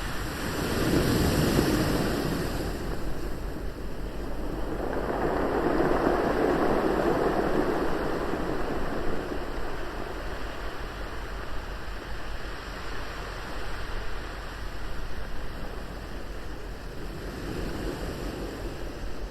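Sea waves washing ashore, a steady rushing with slow swells that rise and fall every few seconds.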